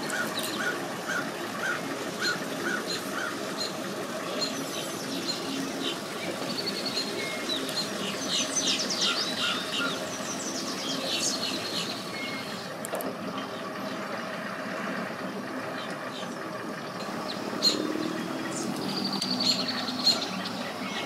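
Birds chirping and calling: a short call repeated about twice a second for the first few seconds, then quick runs of high chirps in the middle, over a steady low hum. A couple of sharp knocks near the end.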